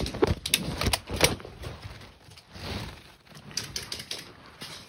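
A run of sharp clicks and knocks, four or five in the first second and a half, then softer rustling and scuffing with a few lighter clicks.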